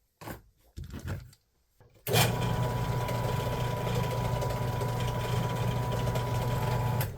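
A power drill with a 13/64-inch bit runs steadily for about five seconds, drilling a pilot hole to be tapped for 1/4-inch threads. The motor gives a low hum with a thin steady whine, starting about two seconds in and stopping near the end, after a few handling clicks.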